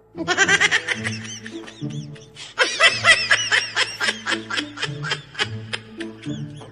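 High-pitched, rapid giggling laughter over background music. It breaks off briefly just before halfway, comes back louder, then thins out near the end.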